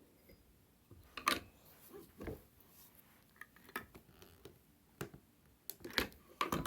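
Scattered clicks and knocks of a VEVOR button press's metal die and parts being slid over, lined up and pressed, with louder knocks about a second in and near the end.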